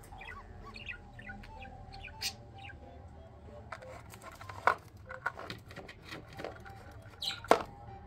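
A budgerigar chirping softly, with several sharp taps and clacks as it pecks at and knocks down a small plastic-framed mirror toy on the floor; the loudest clacks come about halfway through and near the end.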